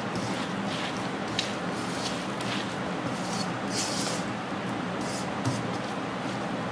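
Grated carrot, coconut, onion and tomato tossed and mixed by hand in a nonstick wok: a soft rustle with each stroke, repeating irregularly, over a steady low hum.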